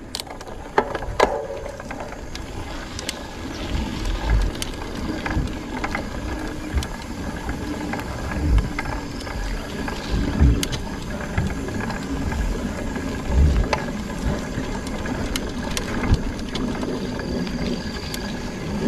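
Mountain bike rolling over a bumpy dirt and grass trail, heard through a handlebar-mounted camera: ratcheting clicks and rattles from the bike, with low thumps as it hits bumps.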